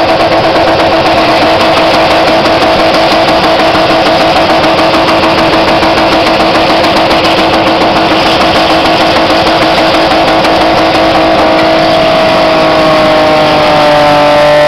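BMW E36 saloon's engine held at high, steady revs during a burnout, its rear tyres spinning. Near the end the revs shift.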